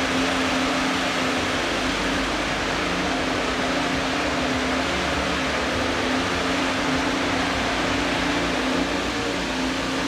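Alpine A524 Formula 1 car's turbocharged 1.6-litre V6 hybrid power unit running at a steady speed on its first fire-up, a constant mechanical hum with no revving.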